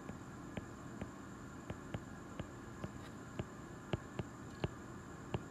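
Faint clicks of a stylus tip tapping on a tablet's glass screen while handwriting: about a dozen short, unevenly spaced ticks, roughly two a second, over a steady low hiss.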